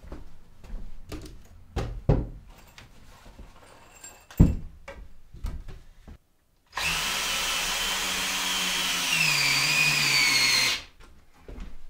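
Wooden knocks and thumps as a stud is handled against a log wall, then a cordless drill driving a screw for about four seconds. The drill's pitch drops about two seconds into the run as the motor slows under load, and it stops abruptly.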